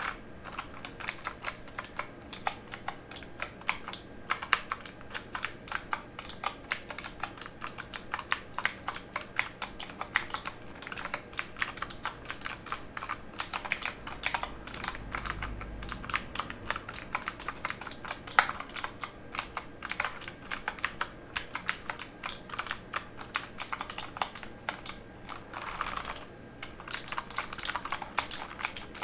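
Typing on a mechanical keyboard: a steady, rapid run of sharp key clicks and clacks, irregular like real typing.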